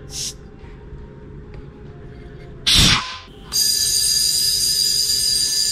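Compressed air at the tank's valve stem: a brief hiss just after the start, a loud burst of air a little under three seconds in as the inflator chuck goes onto the stem, then from about three and a half seconds a steady, high, whistling hiss as the air-inflator gun fills the homemade air-cannon tank, pressurizing it for a pressure test.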